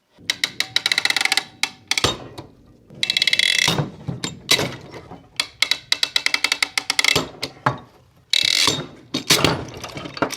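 Fast ratcheting clicks in several short runs, from a fastener being ratcheted tight as the sink's plumbing pipes are clamped together.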